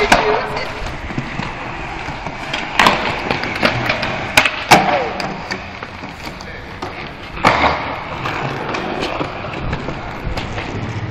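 Skateboard wheels rolling on a hard court surface, broken by several sharp clacks of the board hitting the ground during tricks and landings.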